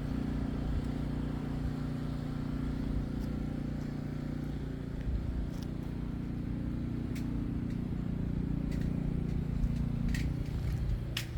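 A car engine running steadily, with a low hum that shifts slightly partway through. A few sharp clicks come near the end.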